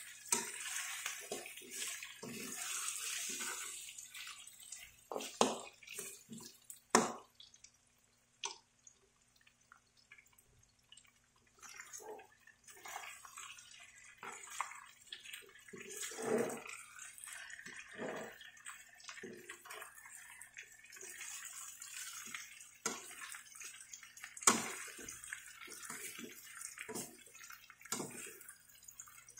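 Pork adobo sizzling in a hot wok, the sizzle strongest over the first few seconds as dark sauce is poured in. A metal slotted spatula scrapes and knocks against the wok as the pork is stirred.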